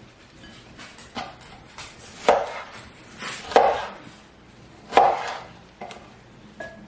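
Kitchen knife slicing cucumbers into sandwich pickle slices on a cutting board. There are three strong cuts, each a short slicing rasp ending in a knock of the blade on the board, with a few lighter taps between them.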